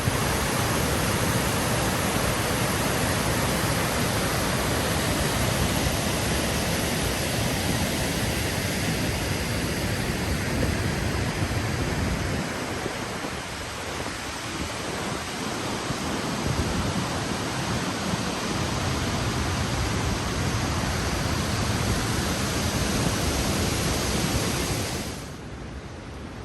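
Waterfall pouring: a steady, dense rush of falling water that drops to a quieter rush near the end.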